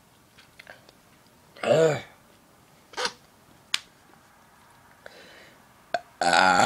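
A man burping after gulping soda pop from a can: a short throaty burp about two seconds in, a briefer one around three seconds, and a louder open-mouthed burp near the end.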